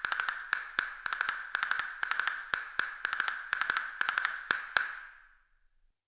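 Castanets clacking in quick rhythmic groups of sharp wooden clicks, each with a bright ring. They stop about five seconds in, the last click ringing briefly away.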